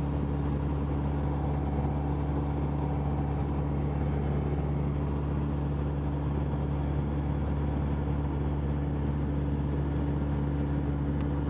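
Cessna 172's piston engine and propeller droning steadily in level flight, heard inside the cabin through the intercom.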